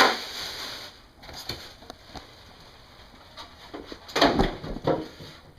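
Handling noise while the mini split's indoor unit and its line set are worked through the wall: a rustle that fades about a second in, scattered light clicks, then a cluster of knocks and scrapes about four seconds in.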